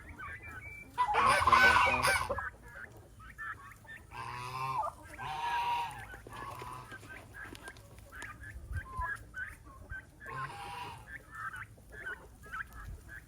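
Backyard chickens and turkeys clucking and calling, with many short peeps and one loud call about a second in, followed by a few more drawn-out calls.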